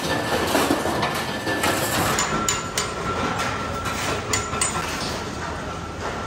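Hammer blows on sheet metal: a run of sharp, irregularly spaced metallic taps from about two seconds in, over steady workshop noise.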